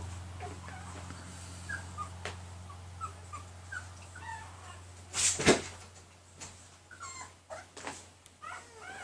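Pembroke Welsh Corgi puppy whimpering in short, high squeaks, again and again. A loud brief rustle or thump comes about five seconds in.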